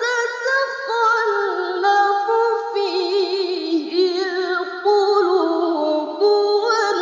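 Qur'anic recitation in tilawah style: a high, clear voice drawing out a long melismatic phrase, holding notes with vibrato and stepping the pitch up and down between them.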